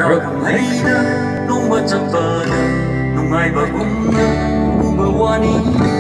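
A song played over a sound system: acoustic guitar strumming with a man singing.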